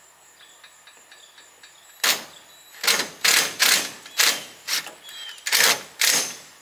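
Cordless power driver driving screws in short bursts, about eight of them starting about two seconds in, fastening a door into its frame.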